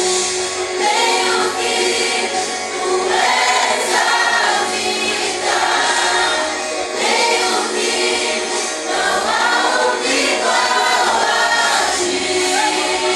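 A group of voices singing a worship song together over instrumental accompaniment.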